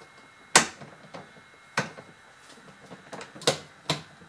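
Sharp clicks and knocks from the folding handle of a Ryobi 40-volt lawnmower being set up and locked into place: four of them, the loudest about half a second in.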